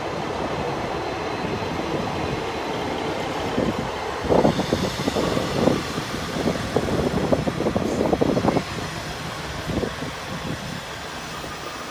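Transport for Wales diesel multiple unit, a Class 150 with a Class 143 Pacer at the rear, running past and pulling away: engine and wheel-on-rail rumble, with a run of louder knocks and thumps about four seconds in that fades off toward the end.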